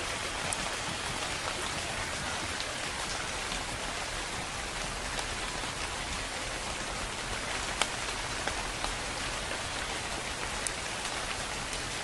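Steady rain falling, with a few sharper single drop hits standing out.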